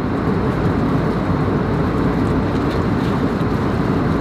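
Steady cabin noise of an Airbus A321neo in flight: engine and airflow drone heard from inside the cabin.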